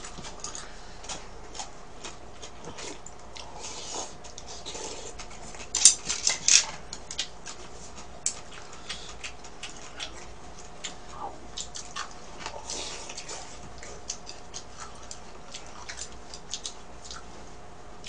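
Eating cup ramen with chopsticks: scattered light clicks of the chopsticks against the bowl, with mouth sounds of eating noodles and a louder cluster of clicks about six seconds in.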